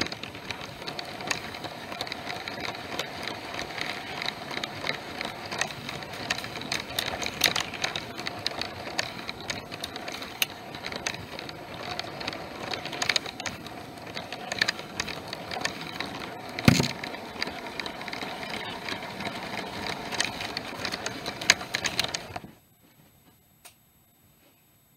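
Toy Lego train running along plastic track, its motor humming with a rattle of clicks from the wheels and cars. A single sharp knock comes about 17 seconds in, and the running sound cuts off suddenly a few seconds before the end.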